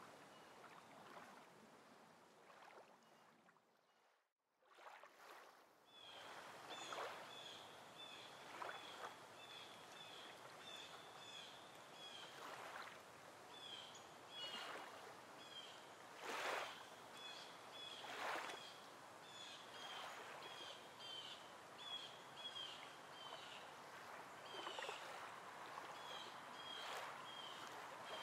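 Faint outdoor ambience: small songbirds chirping in the background, a long run of short high notes, about two a second, with a few brief rushes of noise. The sound drops out almost completely about four seconds in.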